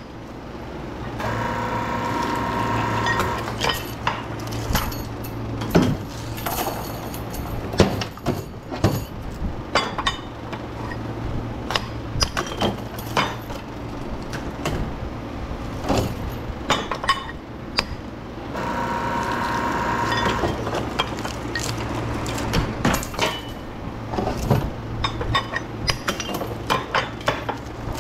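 Metal parts of HID-light transformers clinking and knocking as they are taken apart, over a steady low hum. Twice, about a second in and again about two-thirds through, a small motor whirs for around two seconds.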